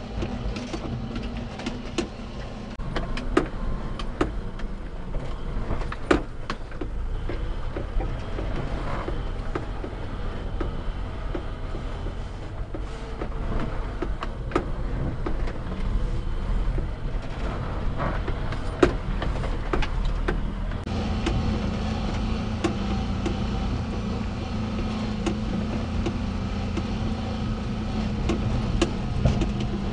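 Inside the cab of a 1992 Daihatsu Hijet S83P mini truck on a rough trail: its 660cc carbureted three-cylinder engine running rough, with short knocks and clatters from the truck as it goes over bumps. About two-thirds of the way through, the engine note grows stronger and steadier.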